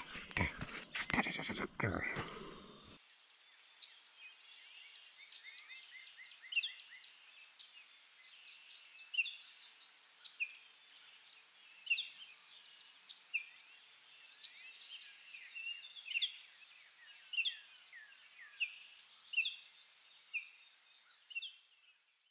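Rustling and crunching for about the first three seconds, then forest songbirds: repeated short whistled notes that drop in pitch, roughly one every second or so, over a steady faint high hiss of more distant birdsong. It cuts off abruptly at the end.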